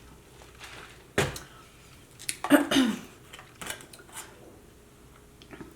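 Handling and eating sounds at a meal of takeout food: scattered clicks and knocks of containers and utensils, the sharpest about a second in, with a brief murmured vocal sound about halfway through.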